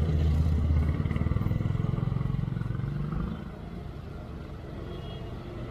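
Vehicle engines in slow city traffic: a low engine drone that rises a little in pitch over the first three seconds, then drops away to a quieter road hum.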